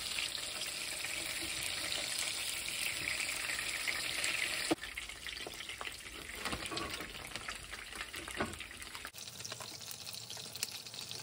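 Chicken wings and peas sizzling in hot oil in a frying pan: a steady hiss. About five seconds in it cuts to quieter scraping as a silicone spatula scoops rice out of a plastic microwave rice tray, with faint sizzling behind.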